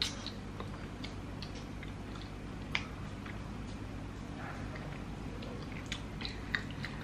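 Wet mouth sounds of chewing raw honeycomb and sucking honey off fingers: scattered small clicks and smacks over a faint steady hum.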